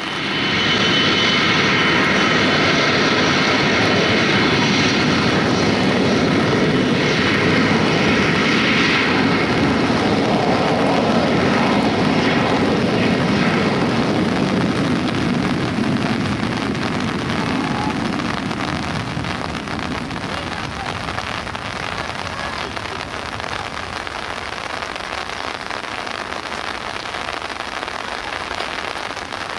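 Large jet airliner's engines running loud, a roar with a high whine of several steady tones. It fades away over about fifteen seconds, leaving the steady hiss of heavy rain.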